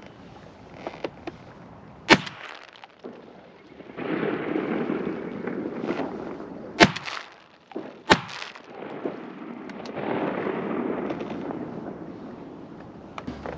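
Three shotgun shots at ducks: one about two seconds in, then two more about a second apart a few seconds later.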